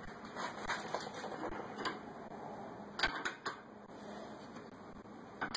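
Hand wrench tightening the lock nut on a new tie rod end's ball stud: a run of light metal clicks, then a few sharper clicks about three seconds in and one more near the end.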